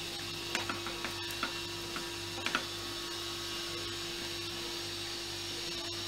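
A spatula clicking and scraping against a metal kadai while stirring a dry mince-and-pea filling: several sharp clicks in the first three seconds, then only a steady low hum.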